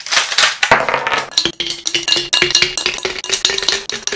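Ice cubes cracking loose from a plastic ice cube tray and clattering into a glass carafe: a dense, continuous run of clinks and knocks.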